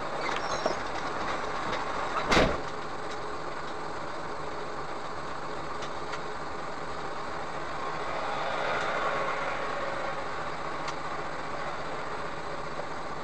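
Steady running noise of a vehicle heard from its cabin, with one short loud knock about two seconds in.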